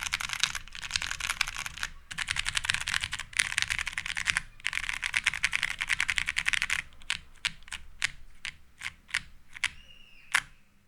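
Mechanical keyboard with unlubed vintage Cherry MX Brown switches and Cherry POM keycaps on a PC half plate, mashed rapidly in dense bursts of keystrokes, then slowing to single keystrokes with one louder stroke near the end.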